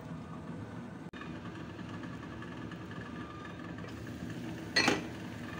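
Steady low rumble of a gas stove burner under a pot of boiling chicken soup, with a brief gap about a second in. Near the end comes a single sharp clink on the pot.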